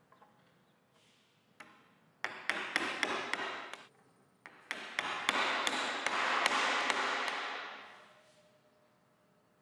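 Light hammer taps seating metal Domino knockdown connectors into their mortises in a hardwood board: a quick run of about six sharp taps, then after a short pause a second, longer and denser run.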